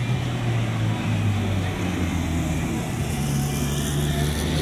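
Police tow truck's engine running low and steady as it creeps forward, over the chatter of a dense crowd.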